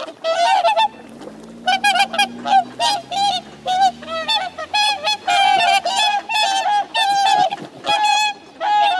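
Whooper swans calling: a rapid, overlapping run of honks from several birds, with a short lull about a second in. A faint low hum runs underneath for a few seconds in the first half.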